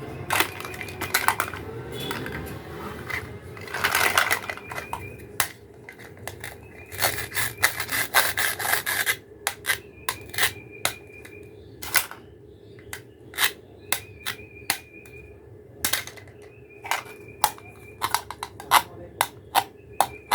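Plastic toy food and kitchen pieces being handled: many sharp clicks and taps, irregularly spaced, with stretches of scraping and rubbing about four seconds in and again around seven to nine seconds.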